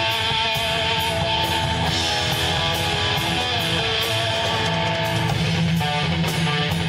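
Rock band playing live without vocals: strummed electric guitar chords over a steady beat of cymbal strikes, about two a second.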